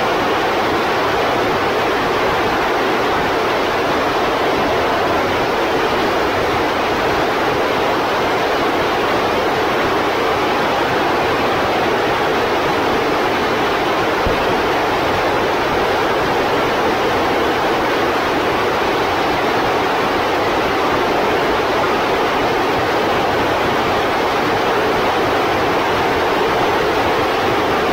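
Gilmour Space 110 kN hybrid rocket engine firing in a static test: a loud, steady rush of exhaust noise that holds an even level.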